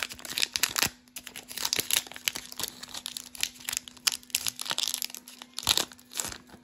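Foil wrapper of a Pokémon TCG booster pack crinkling and tearing as it is pulled open, a dense run of short crackles in several clusters that stops just before the end.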